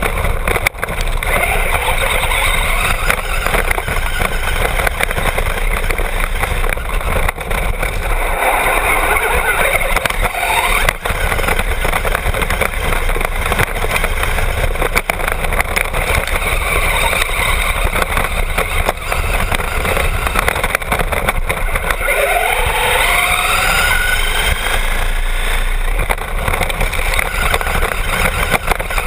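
Onboard sound of a Traxxas Bandit 1/10-scale RC buggy with a brushless motor driving fast over dirt: motor and gear whine mixed with loud tyre, gravel and chassis rattle. The whine rises in pitch as it accelerates about three-quarters of the way through.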